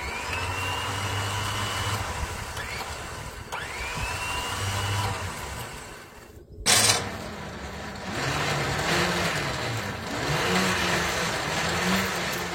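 Land Rover Defender's electric winch running on its remote at high speed: the motor's whine rises as it spins up, twice in the first few seconds. It stops about six seconds in, there is one loud clunk, and then it runs again with a wavering pitch.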